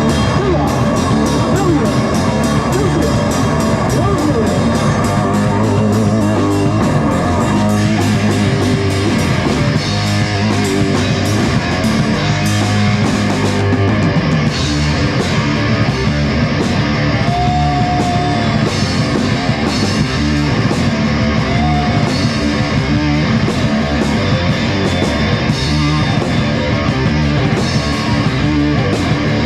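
Rock music played on guitar and drum kit, with a steady drum beat.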